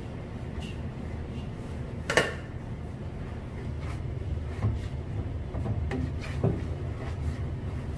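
Kitchen work noise: one sharp clank about two seconds in and a few lighter knocks later, over a steady low machine hum.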